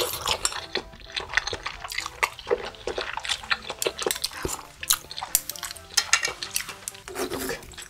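Chopsticks clicking, tapping and scraping against a frying pan while picking up spicy tteokbokki rice cakes from thick sauce, in irregular quick taps.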